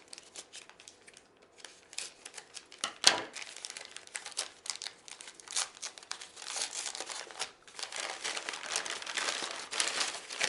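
Packaging being unwrapped by hand: irregular crinkling and tearing, with a sharp snap about three seconds in and denser, louder crinkling in the second half.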